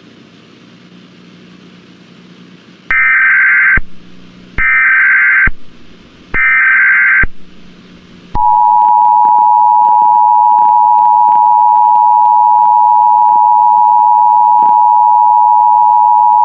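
Emergency Alert System tones: after a few seconds of faint hiss, three short bursts of the SAME header's warbling data tones, each about a second long, then the steady two-tone attention signal starting about eight seconds in.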